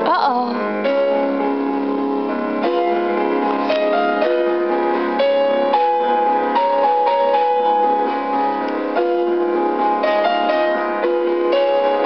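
Background piano music, a melody of steady notes changing every half-second or so, with a brief wavering glide in pitch right at the start.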